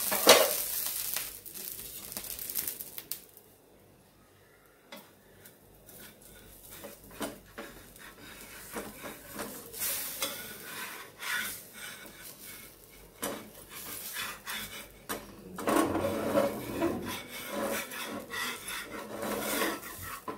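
Batter crepe sizzling on a hot iron tawa, the hiss fading within the first second or so. Then scattered knocks and a steel spatula scraping against the iron griddle as the crepe's edge is loosened, loudest over the last few seconds.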